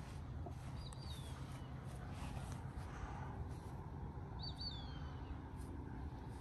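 A bird calling twice over a steady low outdoor rumble: short high notes that slide downward, about a second in and again a little past the middle, the second call a quick double note before its slide.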